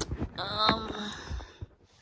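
A woman's voice making a drawn-out wordless sound, about a second long, just after a short knock.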